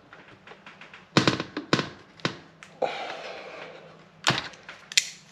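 Metal clicks and clinks of drum brake shoes, springs and adjuster being worked into place on a steel backing plate. A short scraping rasp comes in the middle, and two sharper clinks near the end.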